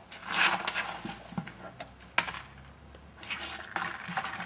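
A bucket being scraped and knocked across gravelly dirt as a puppy pushes and paws it about: a scrape in the first second and a sharp knock about two seconds in, with lighter knocks between.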